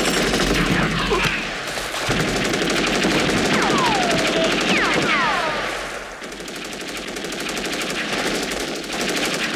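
Rapid, continuous machine-gun fire from a film battle soundtrack, easing somewhat past the middle. A few high sounds falling in pitch cut through between about three and five and a half seconds in.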